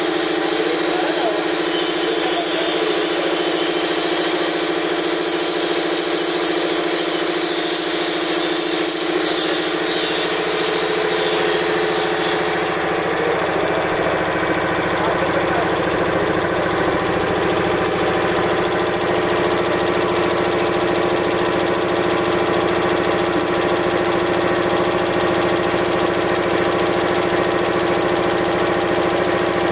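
High-pressure multi-cylinder piston air compressor, driven by an electric motor, running loud and steady with an even mechanical hum.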